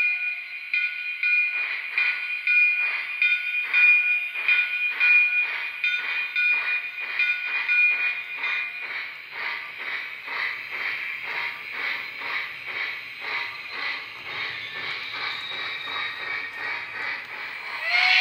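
Lionel Lion Chief 2.0 0-6-0T steam switcher's electronic sound system chuffing as the O-gauge model runs, the chuffs speeding up from under two a second to about three a second. A thin steady high tone sounds with them for the first half.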